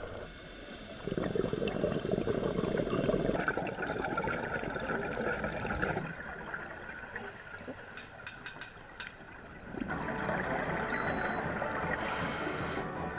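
Underwater water noise heard through a diving camera: rushing, bubbling water in two spells, from about a second in to about six seconds and again from about ten seconds, with a quieter stretch between that holds a few sharp clicks.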